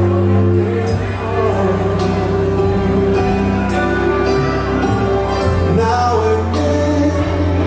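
A slow song playing, with singing over sustained low notes and a few scattered percussion hits.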